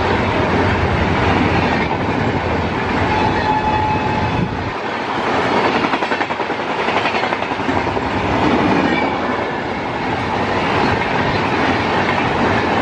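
Express passenger train coaches passing close by at speed: a loud, continuous rumble and rattle of wheels on rails, with a rhythmic clickety-clack as the bogies cross rail joints.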